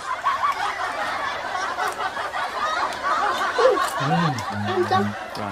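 Many voices snickering and chuckling at once, overlapping like a canned laugh track, with a short low hum near the end.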